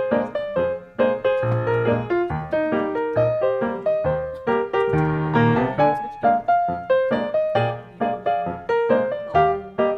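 Background piano music: a light, quick run of notes over bass notes.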